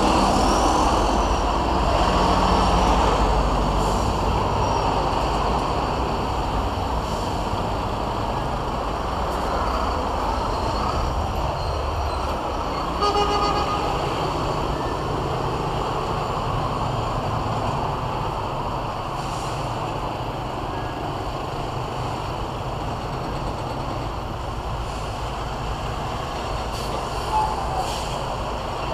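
Road traffic with heavy trucks passing, a steady rumble that is loudest at the start and slowly eases off. A short vehicle horn toot sounds about halfway through.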